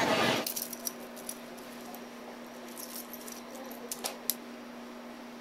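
Loud street crowd noise that cuts off about half a second in, then a quiet room with a steady low hum and scattered light clicks and taps of small toiletry containers being picked up and handled.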